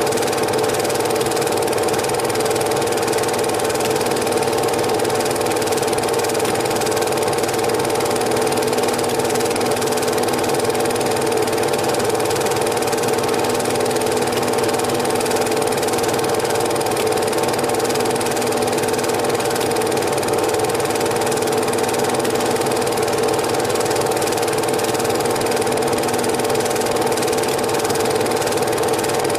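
Steady mechanical whir of a cine film projector running, with a constant hum.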